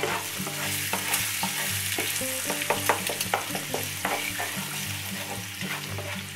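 Eggs sizzling in hot olive oil in a nonstick frying pan while a plastic slotted spatula scrapes and taps against the pan, breaking up and scrambling the eggs. A steady frying hiss runs under many short scrapes and clicks.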